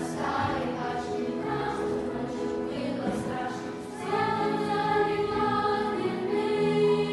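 Choir singing sustained chords that swell louder about four seconds in.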